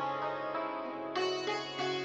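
Background music: a plucked string instrument playing a melody over a steady held low note, with fresh notes struck about a second in and again near the end.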